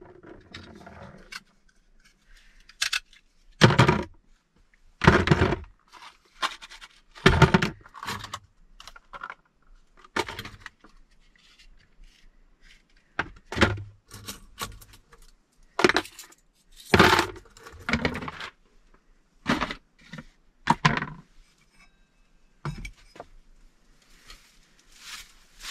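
A series of sharp clinks and knocks, irregular, about one every second or so with short quiet gaps between them.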